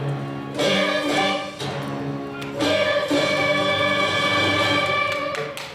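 Children's choir singing with instrumental accompaniment, ending on a long held chord that starts about halfway through and cuts off near the end.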